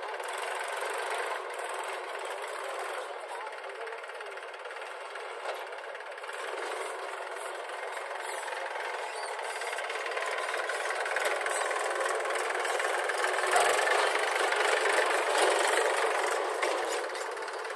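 Diesel engines of a tractor and a JCB backhoe loader running together, getting louder about three-quarters of the way through and easing again near the end.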